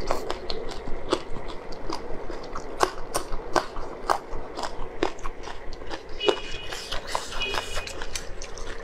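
Close-up mouth sounds of eating: wet smacking, sucking and chewing clicks as sauce-covered food is eaten.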